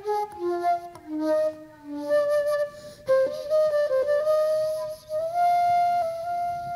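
Jazz flute playing a slow ballad melody. A phrase falls over the first couple of seconds, then longer held notes climb a step about five seconds in.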